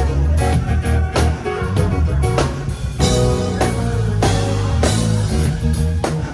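Rock band music: guitar over a heavy bass line and a steady drum beat.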